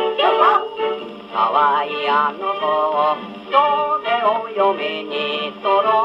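1950 Japanese 78 rpm shellac record playing on a Columbia portable gramophone with an acoustic soundbox: a voice singing with a wavering vibrato over a small band. The sound is thin, with no deep bass and little treble.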